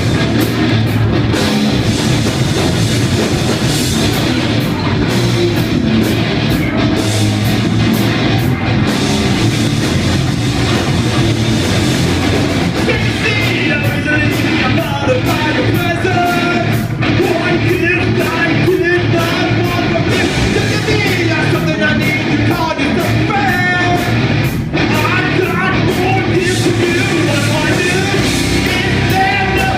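Live heavy metal band playing loudly, with distorted electric guitars and a drum kit; a wavering lead line comes in about halfway through.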